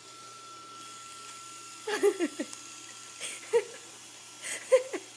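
Robot vacuum running with a steady hum and a thin high whine. Short high vocal squeals or whines come about two seconds in, again around three and a half seconds, and near the end.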